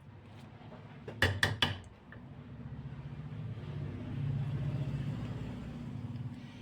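Three sharp clicks in quick succession, then a low steady hum that swells about halfway through and eases off near the end.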